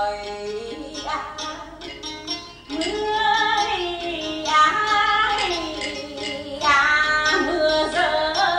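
A woman singing solo in the manner of Vietnamese chèo folk opera: long held notes that bend and slide in pitch, in several phrases with short breaks.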